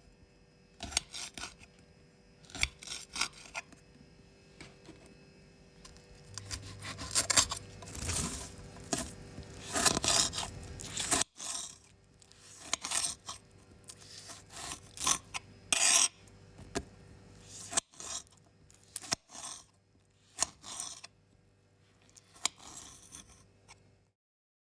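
A knife cutting vegetables in a string of irregular crisp cuts, with a denser stretch of scraping and rasping around the middle.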